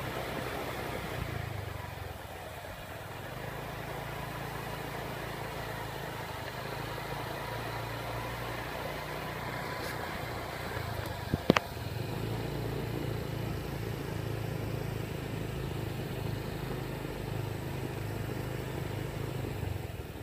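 Small motorcycle engines running at low speed along a bumpy track, their hum rising and falling in steps. A single sharp knock about halfway through.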